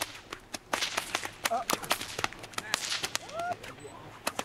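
Two bullwhips cracked together, one in each hand, in a fast, uneven series of sharp cracks, about three or four a second.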